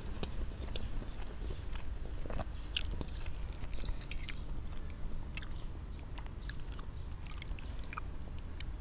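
A person chewing a mouthful of spaghetti, with scattered light clicks of a fork and spoon against a plate, over a steady low rumble.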